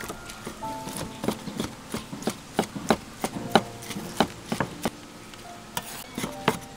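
Meat cleaver chopping cooked meat on a thick round wooden chopping board: steady chops about three a second, a brief pause, then quicker chops near the end.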